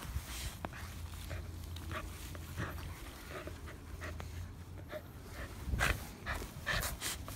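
A pug and a corgi panting and snuffling close up while mouthing a plush toy, with louder short bursts of breath in the last two seconds.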